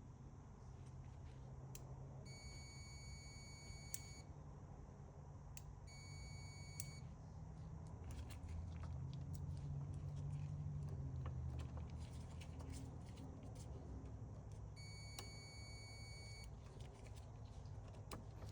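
Multimeter continuity beeper sounding three times as the microwave's door switch terminals are probed: a steady high beep of about two seconds, a shorter one of about a second, then after a long gap one of about a second and a half, with faint clicks in between.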